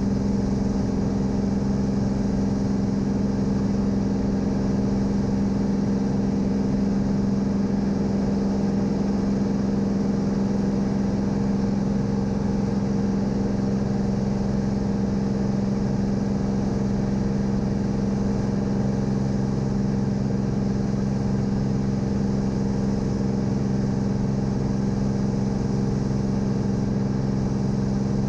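Cirrus SR22's six-cylinder piston engine and propeller droning steadily in the cabin under climb power, an even hum with a strong low tone that does not change.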